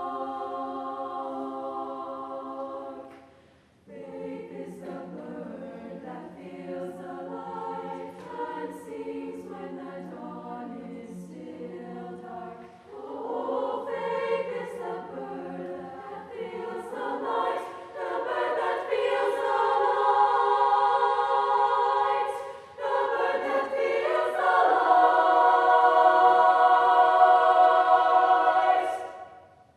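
Women's choir singing. There is a brief break a few seconds in, then the singing builds to loud, sustained full chords, and the final held chord cuts off just before the end.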